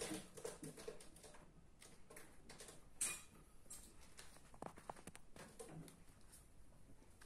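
Scattered faint clicks and taps in a quiet room, pets' claws and paws on a laminate floor, with one sharper tap about three seconds in.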